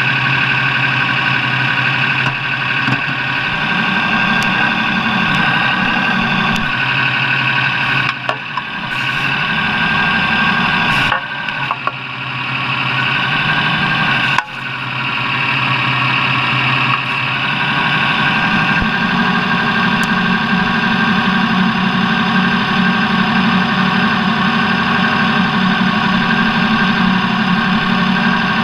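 Off-road race vehicle's engine running loud and continuous, its revs stepping up and down several times. There are a couple of sharp knocks midway through.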